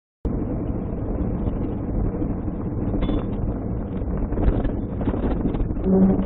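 Steady road and wind rumble of a moving car, picked up by a dash camera, with a short low tone and a rise in level near the end.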